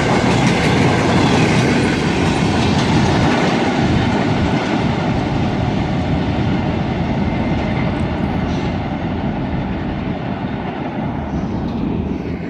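Freight cars of a CSX freight train rolling past, wheels clacking over rail joints, the sound slowly fading as the train moves away.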